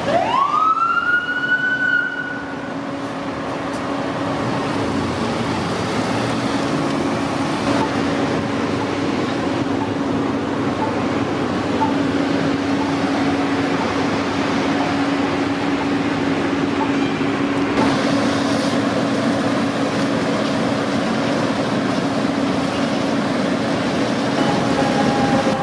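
A fire apparatus siren rising in pitch over about two seconds and then holding, followed by a steady low engine drone of fire apparatus amid street traffic noise. Another siren tone comes in near the end.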